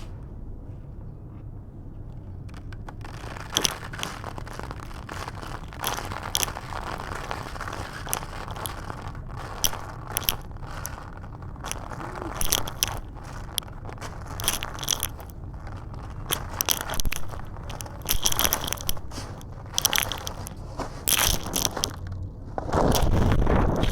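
Crumbly black concrete being crushed and crumbled: continuous crunching and scraping with many sharp crackles, and a louder, heavier crunch near the end.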